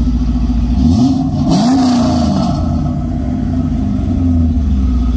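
Chevrolet Corvette C6 V8 with aftermarket headers idling through its quad exhaust, given a short burst of revs about a second in that falls back to idle by about two and a half seconds.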